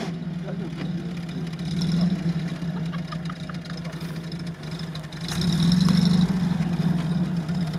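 UAZ off-roader's engine pulling under load up a steep dirt slope, swelling louder about two seconds in and again more strongly around five to six seconds in as the revs rise.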